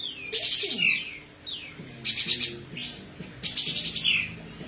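Olive-winged bulbul (kapas tembak) singing its fast 'besetan' song: three loud, rapid rattling bursts, each about half a second long. Falling whistled notes come between the bursts.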